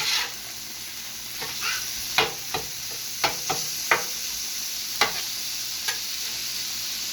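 Ground beef, onion and bell pepper sizzling on a hot steel flat-top griddle, with a metal spatula clacking and scraping on the griddle surface about seven times as the food is worked together.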